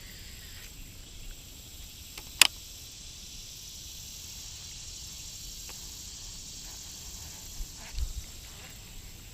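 Quiet outdoor ambience: a steady high hiss, with one sharp click about two and a half seconds in and a few soft knocks near the end.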